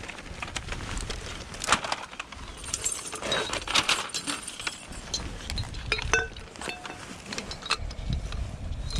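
Small pieces of scrap metal being picked up and handled, with a series of irregular clinks and clatters, a few ringing briefly, over a low wind rumble on the microphone.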